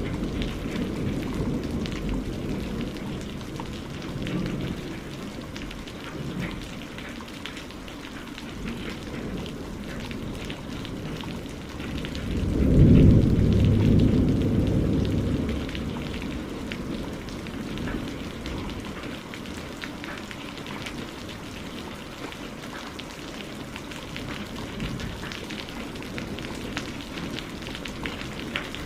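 Steady rain, with a low rumble of thunder that swells about 13 seconds in and dies away over a few seconds.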